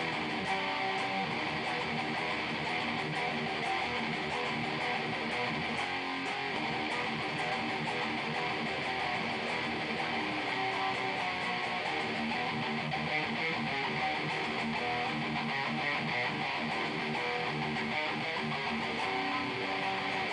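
High-gain distorted electric guitar, a Jackson through a Bugera 6260 valve head and Randall 2x12 cabinet, playing a continuous metal riff. Picked up by an old camera's microphone, so the sound is rough.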